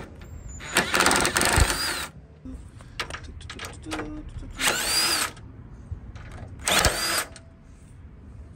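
DeWalt cordless impact driver with a socket backing off the nuts on top of a car's strut tower. It runs three times: a longer run of about a second and a half near the start, then two shorter bursts around five and seven seconds in, each with a whine that shifts in pitch.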